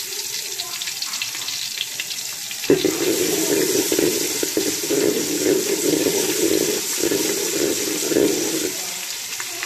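Garlic paste sizzling in hot oil in a cooking pot. About three seconds in there is a knock, then a spatula stirring it around the pot for most of the rest.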